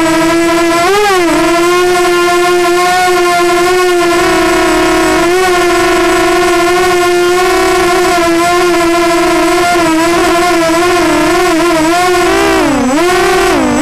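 Walkera Runner 250 Advance quadcopter's brushless motors and propellers whining in a low hover, recorded on board. A steady high-pitched buzz that swoops up in pitch about a second in and dips down twice near the end as the throttle changes.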